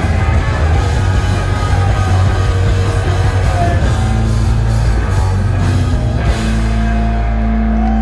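Live rock band played loud through a PA: drum kit with cymbals, distorted electric guitars, bass and a singer. About six seconds in the drums stop and a held final chord rings on from the guitars and bass.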